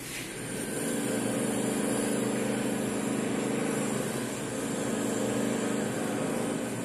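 Whiteboard being wiped clean with a duster: a steady rubbing.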